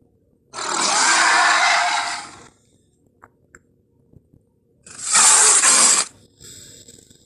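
Two harsh, rasping roars from an Allosaurus sound effect: a two-second roar, then a shorter, louder and brighter one, followed by a fainter rasp near the end.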